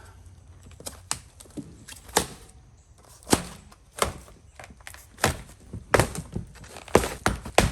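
Packing material on a boxed e-bike being handled: an irregular run of thunks and crackles, coming faster in the second half.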